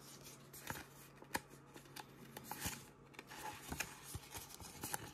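Faint rustling and small scattered clicks of Pokémon trading cards being handled, with a card being slid into a plastic card sleeve.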